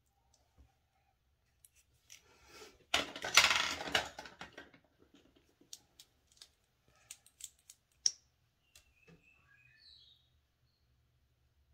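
Makeup items being handled: a burst of scraping, rasping noise about three seconds in, then scattered light clicks and taps.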